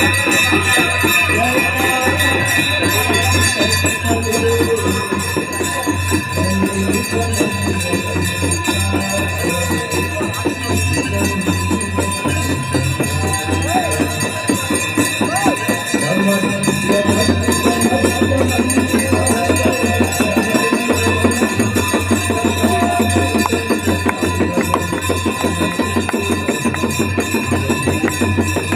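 Aarti ritual music: hand bells ringing without pause over a fast, steady drum beat, with voices chanting.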